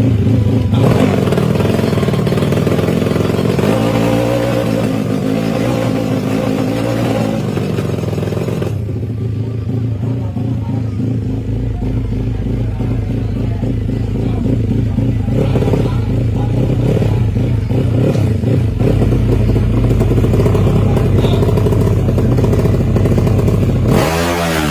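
450cc DOHC drag-bike engine running steadily at a fast idle, a choppy sound likened to a helicopter, with a brief change in engine pitch near the end.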